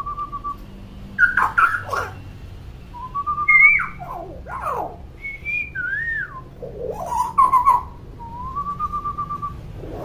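Common hill myna whistling and calling: a wavering, trilled whistle held at one pitch, heard three times (at the start, about three seconds in, and near the end), with sharp swooping squawks and clicks between them.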